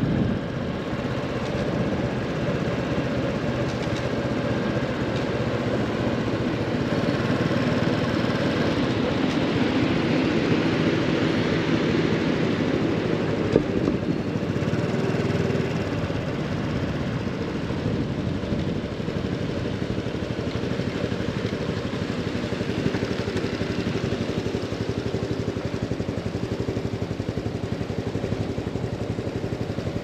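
Honda Super Cub 110 Pro's single-cylinder four-stroke engine running steadily, swelling louder and brighter for several seconds about a third of the way in.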